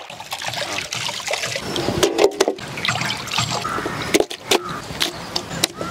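Raw chicken pieces being washed by hand in a steel basin of water, with water sloshing and splashing. Sharp knocks follow in the second half as the wet pieces are dropped onto a steel plate.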